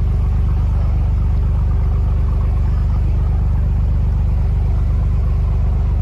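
An engine running steadily, a loud, low rumble with a fast, even throb.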